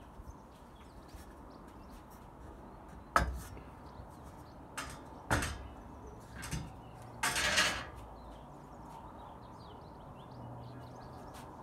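Metal bars of a home-built 270-degree vehicle awning frame being moved by hand on a roof rack: a sharp metal knock about three seconds in, two more knocks around five seconds, and a longer clattering scrape a little after seven seconds.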